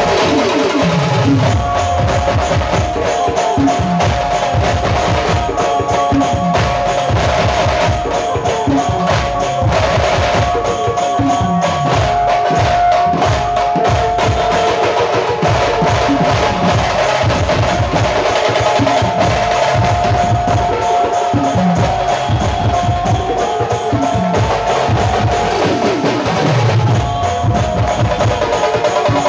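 Loud dance music with a busy drum beat and deep bass notes that slide downward, repeating every few seconds. A held higher tone runs through the middle of the track.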